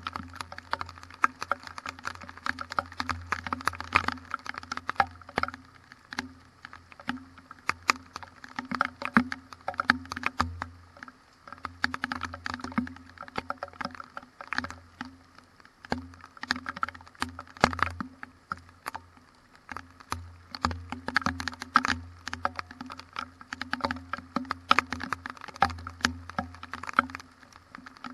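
Rain pattering in dense, irregular close clicks and taps, over a steady low hum.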